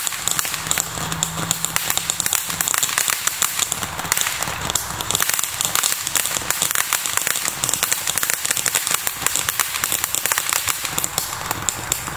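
Ground fountain firework spraying sparks: a continuous hiss full of rapid, dense crackling.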